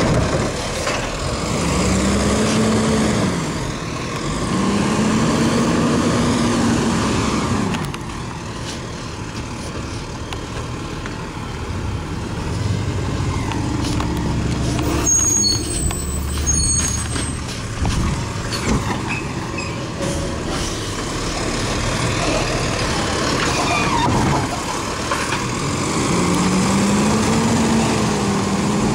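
Automated side-loader garbage truck working a cart pickup: its diesel engine revs up and holds three times as the hydraulic arm lifts and dumps the cart. A brief high squeal comes about halfway through.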